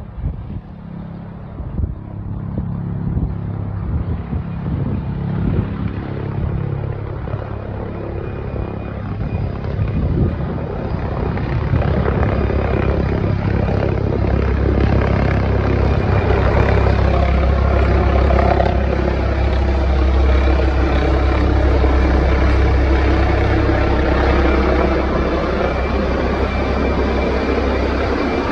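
Helicopter rotor and engine coming in to land, getting steadily louder over the first dozen seconds and then holding loud, with its pitch slowly shifting.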